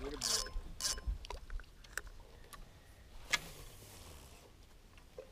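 Scattered light clicks and knocks from a fishing rod and spinning reel being handled in a kayak, with two short hissing sounds in the first second.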